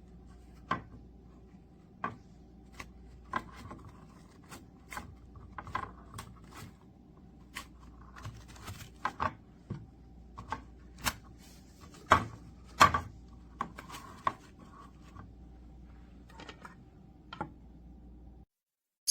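Handling noises: irregular clicks, taps and light rubbing of small objects being handled, over a faint steady hum. The sounds stop suddenly near the end.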